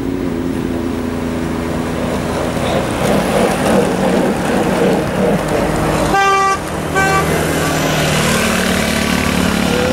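Motor vehicle engines running steadily as vehicles pass on the road; about six seconds in a vehicle horn sounds twice, a longer toot and then a short one.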